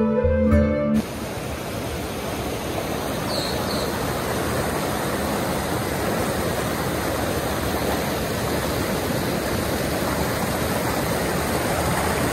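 Background music cutting off about a second in, then the steady rush of a mountain stream tumbling over rocks.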